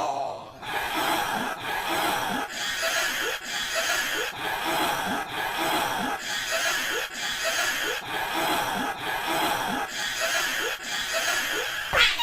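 A cartoon character's short vocal sound, hiccup- or chuckle-like, looped over and over about every 0.6 seconds and heavily processed with audio effects that add a hissy, buzzing layer on top.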